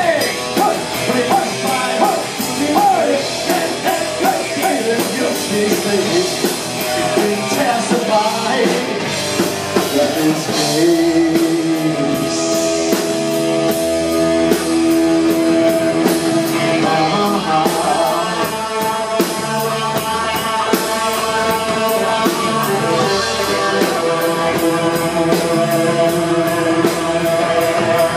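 Live rock band playing: a man singing over electric guitars and a drum kit, the singing giving way about ten seconds in to long held guitar notes over a steady drum beat.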